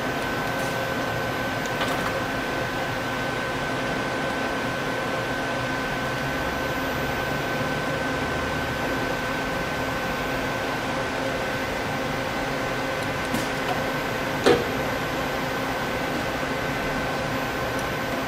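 Doosan Puma 2500LSY CNC lathe running under power: a steady mechanical hum made of several held tones over a noisy bed, with a sharp click about fourteen and a half seconds in and a few fainter ticks.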